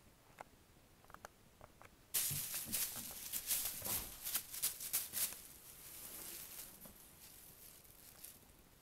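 Plastic shopping bag crinkling and crackling as a kitten pounces into it. A few light ticks come first, then about two seconds in a sudden loud burst of sharp crackling lasts about three seconds and fades to softer rustling.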